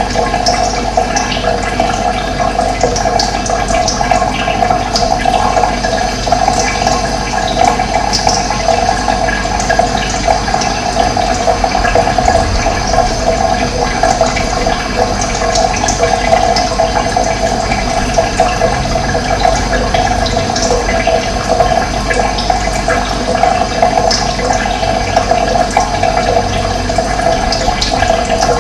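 Steady flow of running water, with brief high chirps of birds scattered through it.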